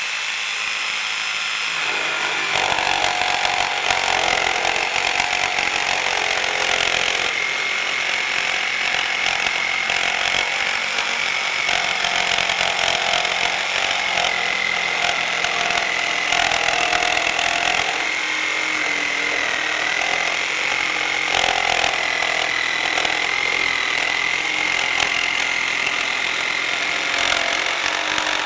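Electric saw running continuously with a steady high whine, a rougher sawing noise wavering beneath it as it cuts.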